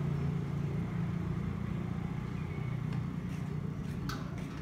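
A steady low mechanical hum, slowly fading, with a few faint clicks about three and four seconds in.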